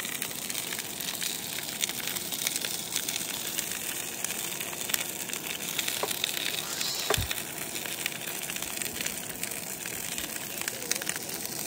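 Two steaks sizzling and crackling in a hot frying pan on a camp stove, with a single low knock about seven seconds in.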